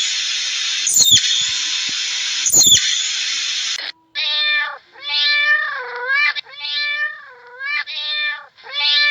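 A steady hiss with a few sharp clicks, cut off suddenly about four seconds in. It is followed by a cat meowing again and again, about five drawn-out meows.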